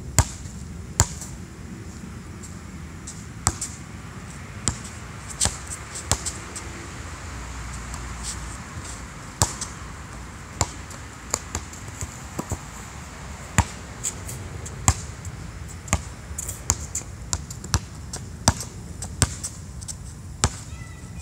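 Basketball bouncing on an outdoor hard court: sharp, irregularly spaced bounces, coming more often in the second half.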